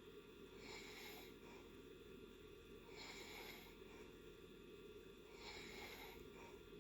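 A person snoring faintly in deep sleep: three slow, airy breaths about two and a half seconds apart, over a steady low background hum.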